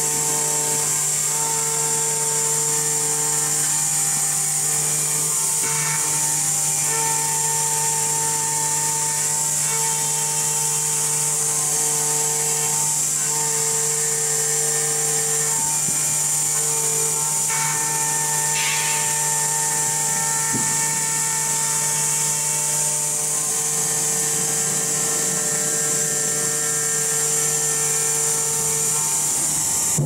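CNC door lock boring machine running: a constant high-pitched whine from its high-speed spindle over a steady hum. Tones from its axis motors start and stop every second or two as the head moves along the door panel's edge, with a few brief noisy bursts of cutting.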